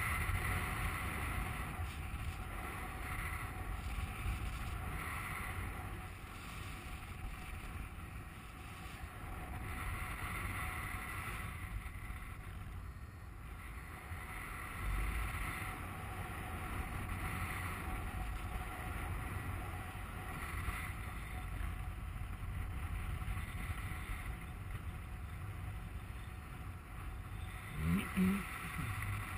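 Airflow buffeting the microphone of a paraglider pilot's onboard camera in flight: a steady low rumble of wind noise. A brief, louder low sound comes near the end.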